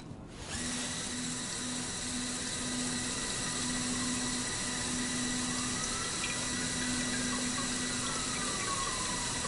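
Monsieur robotic bartender's pumps dispensing a cocktail into a glass: a steady hiss of pouring liquid beginning about half a second in, with a low pump hum that cuts in and out.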